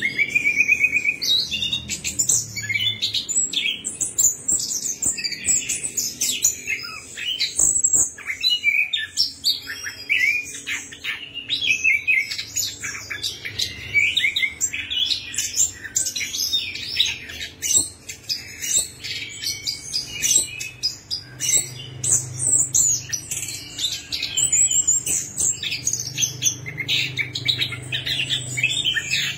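Chestnut-capped thrush (anis kembang) singing a long, rapid, varied song of high chirps, trills and short glides, with barely a pause.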